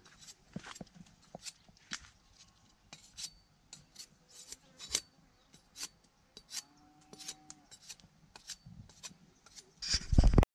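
Knife blade scraping and shaving a green wooden stick, short sharp strokes at about two or three a second. A much louder rustling burst near the end.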